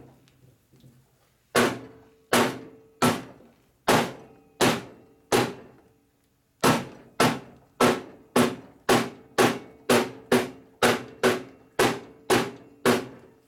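A mallet striking a cast-iron lathe again and again, each blow leaving a short metallic ring: six blows about a second apart, a brief pause, then a faster run of about thirteen at roughly two a second. The blows shock the lathe so that a twist in its bed can settle out.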